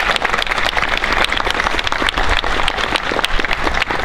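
Audience applauding: many hands clapping at once in a dense, steady stream of claps.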